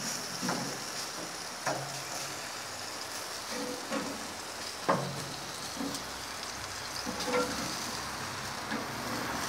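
Chicken thighs sizzling hard on a grill grate set right down over very hot lump charcoal, searing to char them fast: a steady hiss, with a few light knocks and clicks as pieces are set on the grate.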